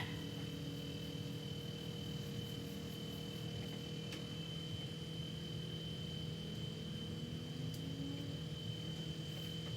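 Small engine running steadily at a distance, a continuous low hum with a thin, steady high tone over it.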